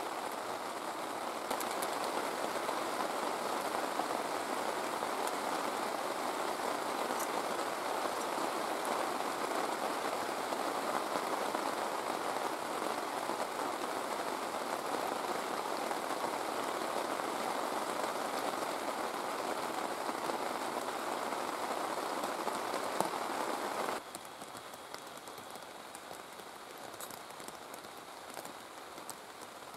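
Steady heavy rain falling, an even hiss of drops on surfaces, which becomes noticeably quieter all at once about three-quarters of the way through.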